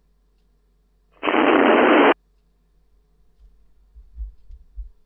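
11-metre CB radio receiver on FM letting out a loud burst of static hiss about a second in, just under a second long and cut off abruptly: a squelch noise burst between transmissions. A few faint low thumps follow near the end.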